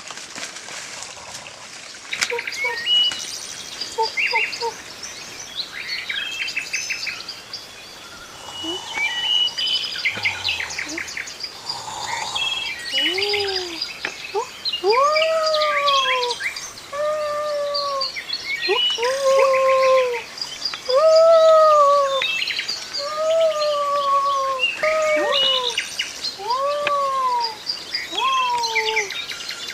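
Birds calling: many short high chirps and quick trills, and from about halfway on a repeated arched whistled call, rising then falling, given about once every second and a half.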